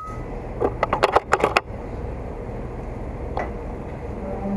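An air rifle shot: one sharp crack with a brief ringing tone, followed about half a second later by a quick run of clicks and taps lasting about a second.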